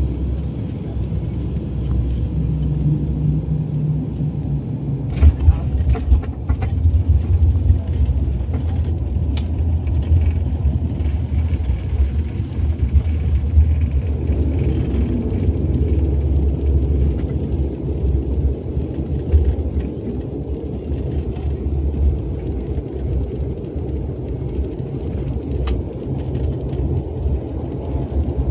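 Airliner cabin noise during landing: a steady low rumble of engines and airflow, with a cluster of sharp knocks and rattles about five to ten seconds in.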